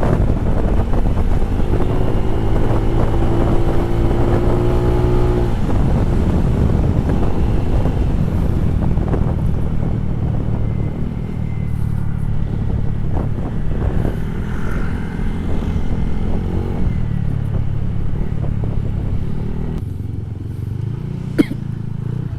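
Motorcycle running at road speed: a steady low engine drone with rough wind noise on the microphone. About two seconds in, a steady tone joins for about three seconds. Near the end the sound eases off, and there is a single sharp click.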